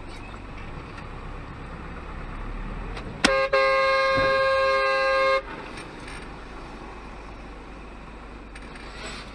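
Steady road noise from a moving vehicle, broken about three seconds in by a sharp collision impact between two cars. A car horn sounds right after the impact for about two seconds and cuts off suddenly.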